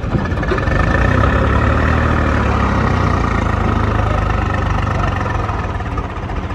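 Diesel engine running at a steady speed, a continuous low hum.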